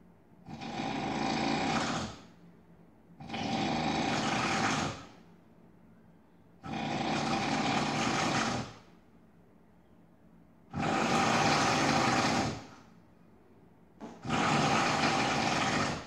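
A sleeping person snoring heavily: five loud snores, each about two seconds long, coming every three to four seconds with quiet breaths between.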